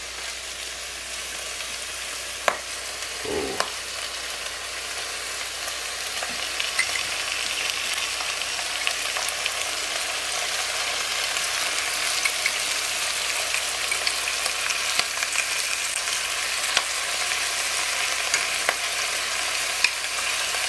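Potatoes, caribou sausage and sauerkraut frying in a pot on a stovetop: a steady sizzling hiss that slowly grows louder, with a few light clicks.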